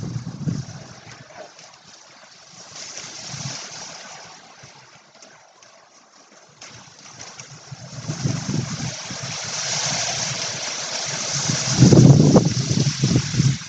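Wind gusting over the microphone in a bamboo grove, with a steady hiss through the leaves. Rumbling gusts come about eight seconds in and grow loudest near the end.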